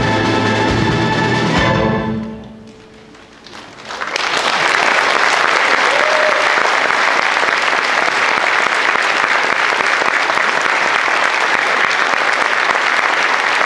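A youth string orchestra ends a piece on a final chord that cuts off about two seconds in and rings away briefly. Audience applause then starts about four seconds in and carries on steadily.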